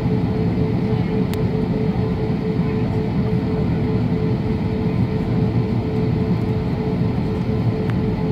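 Steady cabin noise inside an Airbus A320neo on the ground: its engines run evenly, giving a low rumble with a steady hum. Two faint clicks sound, about a second in and near the end.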